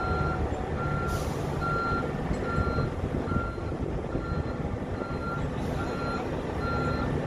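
A vehicle's reversing alarm beeps steadily, a little more than once a second, over the low running of a heavy vehicle's engine. Short hisses of air come about a second in and again later.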